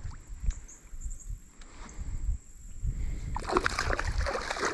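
A small hooked bass thrashing and splashing at the water's surface beside the boat, starting about three seconds in and going on nearly to the end. Before that, only low rumble and a few light clicks.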